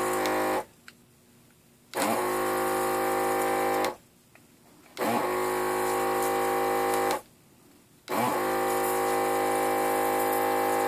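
Vacuum pump of a PACE SODR-X-TRACTOR desoldering iron running in repeated bursts, drawing molten solder off bridged surface-mount pads. It cuts off about half a second in, then runs three more times for about two seconds each with roughly one-second pauses, each run briefly winding up in pitch as it starts.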